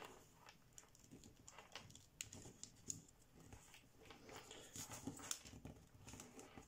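Faint rustling and crinkling of thin kami origami paper being folded and creased by hand, in scattered soft bursts that come thickest past the middle.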